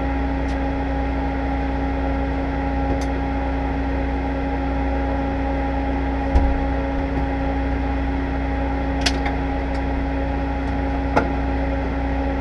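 Steady mechanical hum with a deep, even drone inside a race car's cockpit. A single low thump a little past halfway, then two light clicks near the end.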